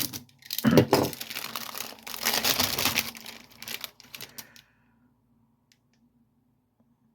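Packaging being handled: crinkling and tearing for about four and a half seconds, then it stops.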